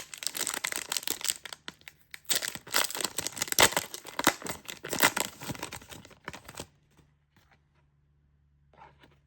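Trading-card booster pack wrapper being torn open and crinkled by hand, in two stretches of dense crackling, then stopping about two-thirds of the way through.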